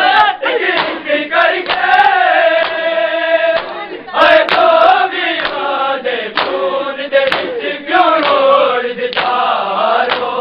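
A group of men chanting a Punjabi noha (a Shia lament) in unison, holding long sung lines. Sharp slaps of matam, the ritual beating of the chest with the hands, cut through the chant now and then.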